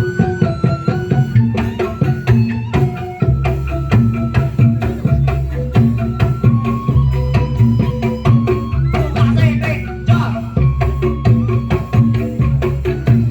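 Instrumental dance music: fast hand-drum beats over a steady bass, with a melody line of held notes.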